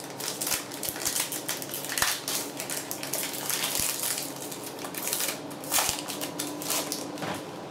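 Foil wrapper of a Pokémon trading-card booster pack crinkling and tearing as it is ripped open by hand, with louder crackles about two seconds in and again near six seconds.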